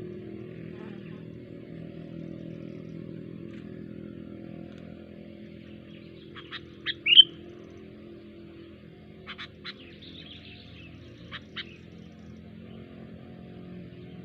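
A pet songbird giving short, sharp chirps in two brief clusters, the loudest a quick rising note about seven seconds in, over a steady low hum.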